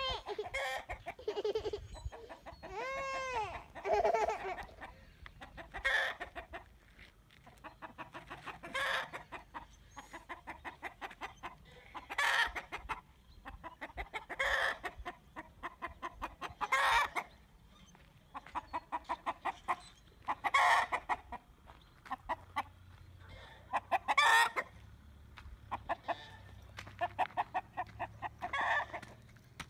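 A rooster calling: two rising-and-falling calls in the first few seconds, then a long run of rapid clucks broken every two to four seconds by a louder call.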